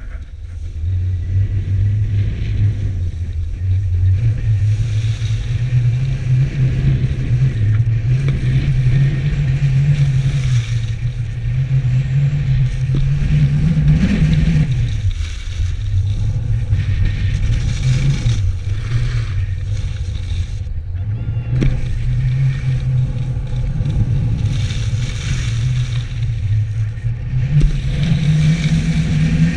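Wind buffeting a handheld action camera's microphone while skiing, mixed with skis scraping and hissing over packed snow: a steady low rumble that eases off briefly about halfway through.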